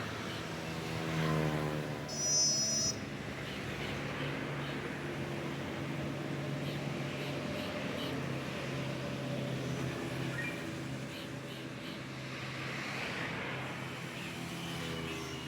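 A vehicle engine running steadily, with a short shrill high tone about two seconds in.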